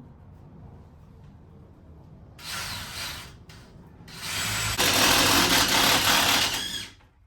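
Handheld power tool running in two bursts: a short one of under a second, then a longer, louder one of nearly three seconds that cuts off near the end.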